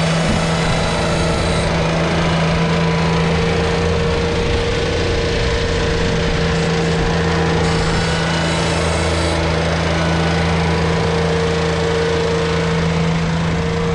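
Ventrac compact tractor's engine running at a steady speed while the tractor pushes snow with its front blade.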